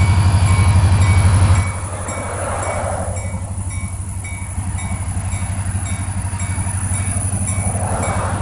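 Train going by: a steady low drone with a fast, even pulse in it, loudest for about the first second and a half, then slightly quieter.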